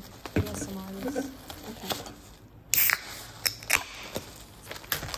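Plastic takeaway bag rustling and crinkling as ramen bowls are unpacked. About halfway through, an aluminium soda can's ring-pull is cracked open with a short, loud hiss, followed by a few sharp clicks.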